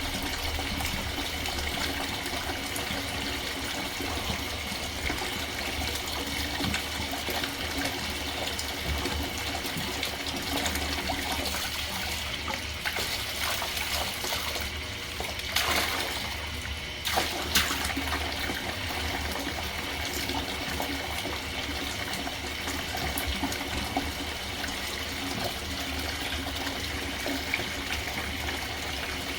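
Tap water running steadily into a sink as dirty vacuum cleaner parts are rinsed, with two brief louder knocks about halfway through.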